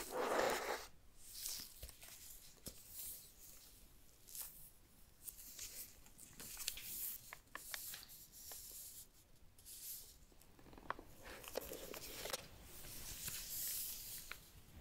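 Paper packaging being handled: the soft paper wrap around a pair of headphones rustles and crinkles as it is peeled away, with small clicks and taps in between. A loud rustle comes right at the start and a longer stretch of rustling comes near the end.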